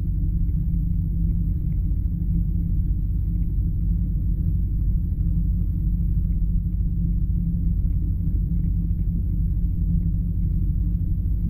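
An engine running steadily: a low, even rumble that does not rise or fall.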